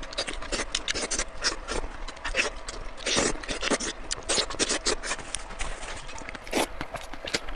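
Close-up eating sounds: irregular wet chewing, smacking and crunching, several clicks a second.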